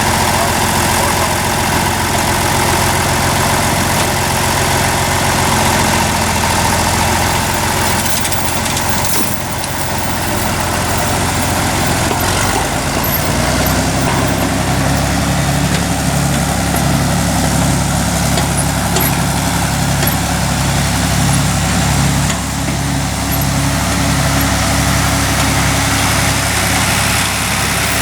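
A vehicle engine running steadily, its note changing about twelve seconds in and taking on a regular pulse.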